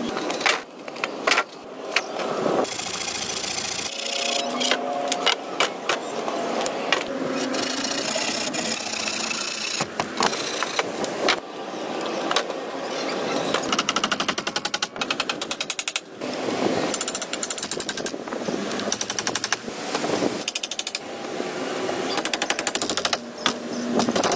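Wooden poles knocking and clattering as they are laid and struck, with stretches of fast repeated tapping and many sharp single knocks.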